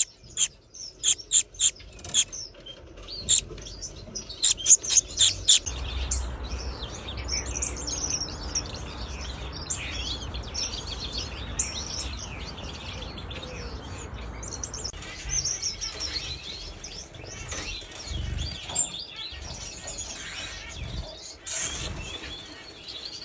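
Gouldian finches, chicks and adults, chirping and twittering in a busy, high-pitched chatter. About a dozen short, sharp, loud bursts come in the first six seconds.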